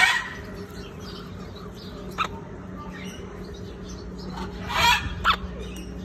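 Amazon parrot giving two short squawky calls, one at the start and one about five seconds in, with a couple of sharp clicks in between as it works at a wicker-and-rope chew toy.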